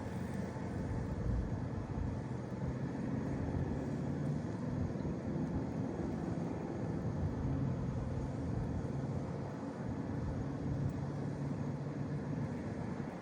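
An engine running steadily with a low hum, heard over a haze of outdoor noise.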